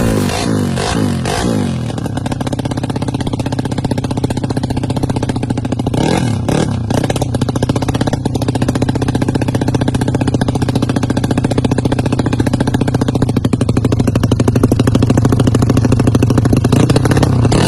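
Yamaha Mio Sporty scooter's single-cylinder four-stroke engine idling with a quick, even putter, its revs falling back to idle in the first two seconds. It is blipped briefly about six seconds in, then settles back to a steady idle.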